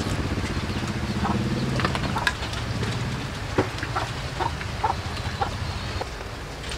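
A small engine running and fading out about two seconds in, then a chicken clucking in short, separate calls, with a few sharp clicks.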